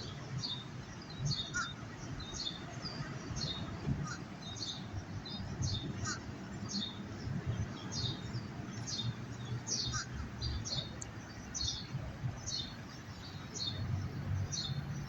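A small bird chirping over and over, short high notes about twice a second, over a faint low rumble.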